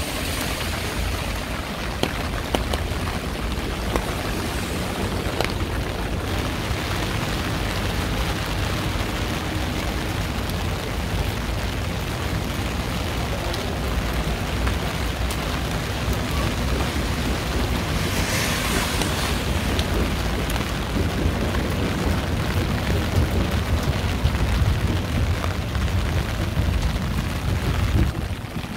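Steady rain falling, a dense hiss full of small drop ticks over a low rumble, with a brief louder burst of hiss about two-thirds of the way through.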